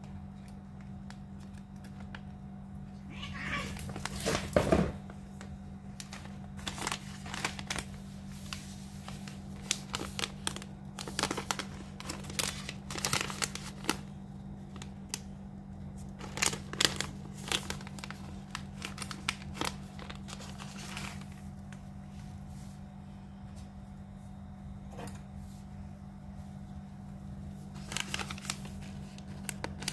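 Foil cat-food pouches crinkling as they are handled, in scattered bursts, with a cat meowing once about three to four seconds in. A steady low hum runs underneath.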